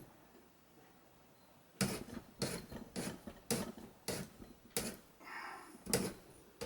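A run of about eight sharp knocks, roughly two a second, from hand work on a motorcycle rear shock absorber as a part is wound down onto it against the spring. A short ringing sound comes between the knocks near the end.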